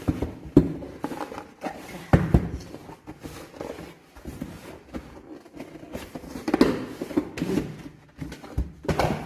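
A large cardboard product box being handled and moved about: scrapes and rustles of the cardboard with several sharper knocks as it is set against the table.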